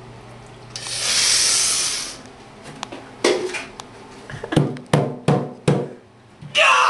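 A loud rushing hiss lasting about a second and a half, then a string of sharp knocks and thumps against the bathtub as he writhes from the sting of hydrogen peroxide on a foot wound. A pained cry starts near the end.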